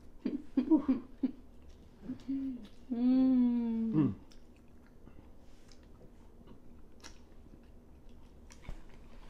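A person's wordless voice sounds: a few short murmurs, then a held hum-like 'mmm' of about a second around three seconds in that drops in pitch as it ends. After it, faint clicks and smacks of eating crab, with chewing.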